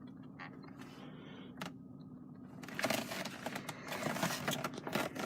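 Scattered faint clicks and creaks over a low steady hum, the clicks growing busier and louder in the second half.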